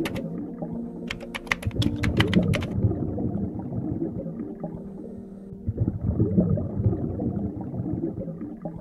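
Computer keyboard typing sound effect: a quick run of about a dozen sharp key clicks starting about a second in and lasting about a second and a half, over low background music with held low notes.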